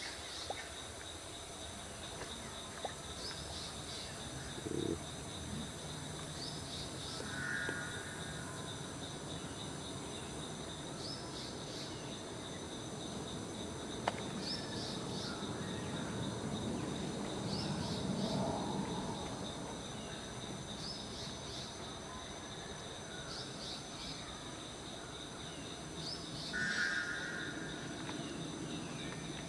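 Natural outdoor ambience: insects droning steadily, with a short high chirp repeating about every two seconds. Two brief higher calls come about a quarter of the way in and near the end.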